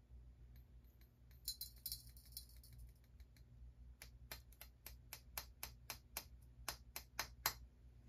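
Faint, light tapping, about four sharp taps a second for a few seconds after a brief rustle: a small cup being tapped to shake fine gold out onto a gold scale's pan for weighing.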